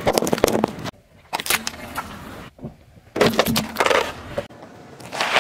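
A car tyre rolling over and crushing small objects, first water-bead balls and later a tin box, in about four short clips. The clips are full of crunching, popping and sharp cracks, and each one is cut off abruptly.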